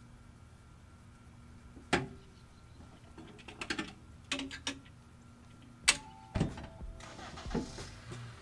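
Sharp clicks and knocks of hand work on a Ford Transit's passenger seat base and its fittings. The loudest come about two seconds and six seconds in, with smaller clusters between.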